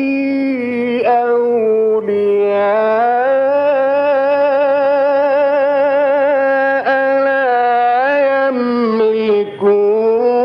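Male Quran reciter chanting in the melodic mujawwad style, drawing out long ornamented notes with vibrato. Between held notes the pitch dips briefly and climbs back.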